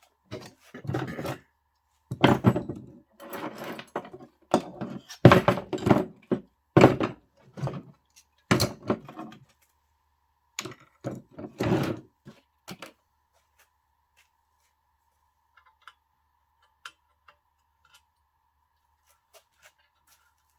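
Repeated clunks and knocks of locomotive body parts being handled and set down during hand-tool disassembly. They come thick for about the first thirteen seconds, then give way to a few faint clicks.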